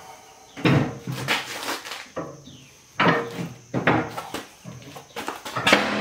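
Steel tooth bar knocking and scraping against the steel cutting edge of a Kubota loader bucket as it is shifted into place, several sharp clanks with a metallic ring after each.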